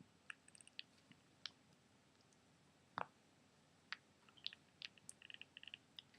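Short clicking sounds made by a girl with her eyes, coming at irregular intervals. There is one louder click about three seconds in and a quick run of clicks near the end.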